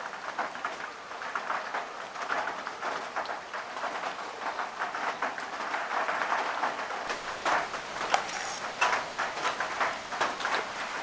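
Rain pattering steadily: a dense, irregular run of small drop hits.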